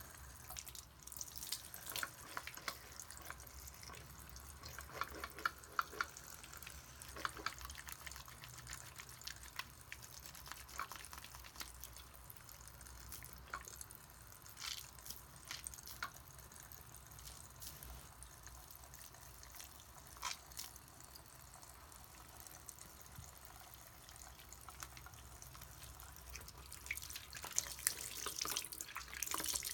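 Faucet water running into a bathroom sink while wet soapy hands rub and squeeze a small piece of Play-Doh soap, with scattered short wet squelches and splashes. The splashing gets busier and louder near the end as the hands rinse under the stream.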